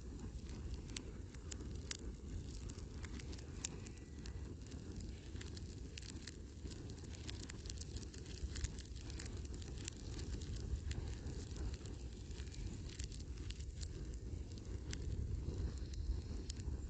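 Fire burning a recliner chair, crackling and popping irregularly over a steady low rumble.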